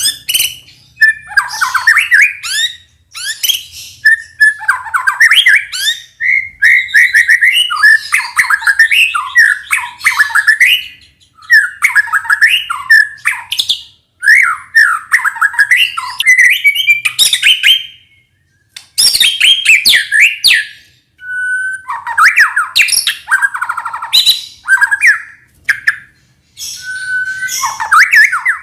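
White-rumped shama (murai batu) singing loud, rapid, varied phrases of whistles and harsh notes, in runs of a few seconds broken by short pauses.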